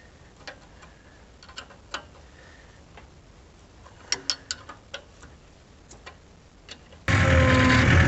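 Scattered light clicks and knocks over a quiet background. About seven seconds in, a skid steer's engine comes in abruptly and runs loudly and steadily.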